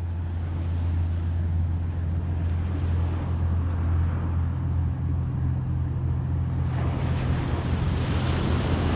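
A steady low engine hum runs throughout. Waves wash over the shoreline rocks and grow louder near the end.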